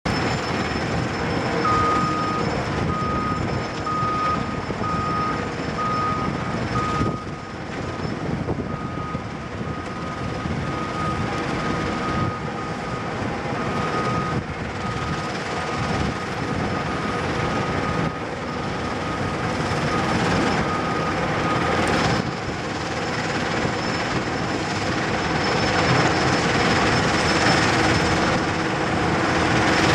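Heavy earthmoving equipment running together: the Cat 325CL excavator's diesel engine working as it loads dirt into a screening plant, which runs alongside in a steady mechanical din. A backup alarm beeps in a regular pulsing pattern from about two seconds in until a little past the two-thirds mark.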